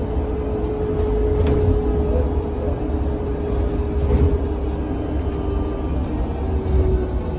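Interior of a Solaris Urbino 18 battery-electric articulated bus on the move: a low road rumble under a steady electric-motor whine that drops slightly in pitch near the end, with a couple of light knocks about a second in.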